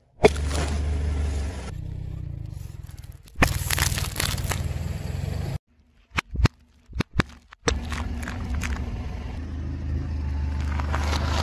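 Car tyre rolling slowly over objects on asphalt and crushing them: a low rumble with sharp cracks, crackles and pops. The sound comes in short clips that cut off abruptly, with a nearly silent stretch in the middle broken by a few sharp clicks.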